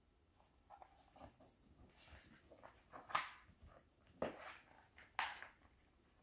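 Faint rustling and swishing of paper as the pages of a large paperback picture book are handled and turned, with a few brief louder swishes about three, four and five seconds in.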